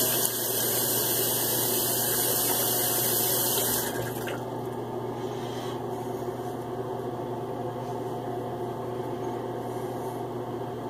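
Water running from a tap into a sink, shut off about four seconds in, leaving a quieter steady background noise.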